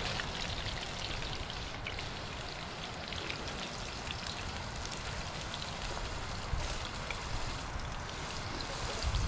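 Hot oil sizzling and crackling steadily as fish fries in a skillet and fries cook in a pot of oil.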